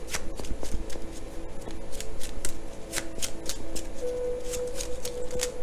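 A deck of tarot cards being shuffled by hand: an irregular run of quick card flicks and slaps, several a second, over faint background music with held notes.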